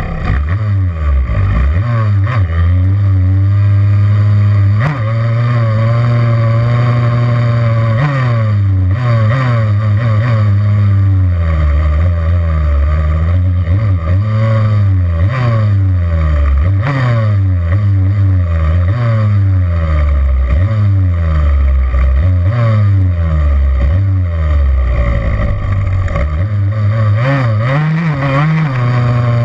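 Yamaha YZ85's two-stroke single-cylinder engine, heard close up from on the bike, revving hard with its pitch climbing and dropping back again and again as the throttle is worked.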